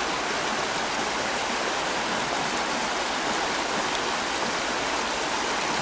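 A stream flowing: a steady, even rush of running water.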